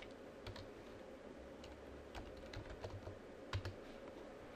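Computer keyboard typing: a dozen or so faint keystrokes at an uneven pace, as a short word is typed.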